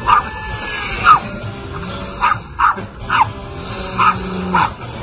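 Small terrier barking sharply and repeatedly, about seven barks in quick succession with the loudest about a second in, over background music.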